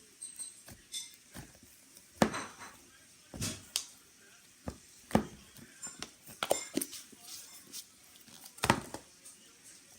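Slime being worked by hand, giving irregular sticky clicks and pops, the loudest about two and nine seconds in.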